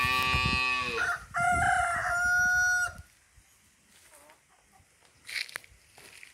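A rooster crowing once, a loud cock-a-doodle-doo about three seconds long whose first part drops in pitch before a long held final note. A short sharp sound follows about five seconds in.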